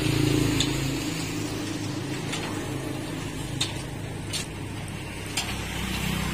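Charcoal spit-roasting rig with chain-driven rotating spits: a steady low mechanical hum, with a few sharp pops scattered at irregular moments from the hot charcoal and the fat dripping onto it.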